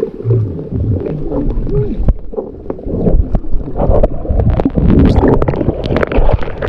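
Muffled water sloshing and gurgling with irregular knocks.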